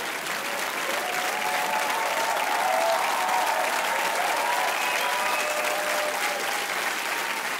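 Audience applause with a few cheering voices mixed in, steady throughout.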